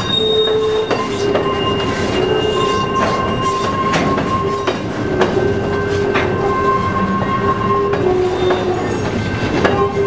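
Steel wheels of coal hopper cars squealing as they roll around a curve, a steady screech that shifts between a few pitches, with irregular clicks and knocks as the wheels cross rail joints.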